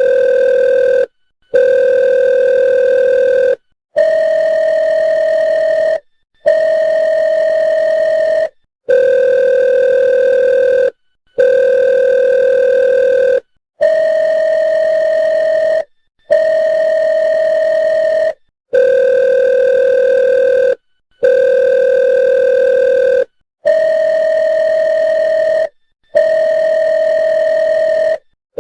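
Electronic phone ringtone for an incoming call: a steady, buzzy tone about two seconds long, repeated with short breaks, going two lower notes, then two slightly higher ones, over and over.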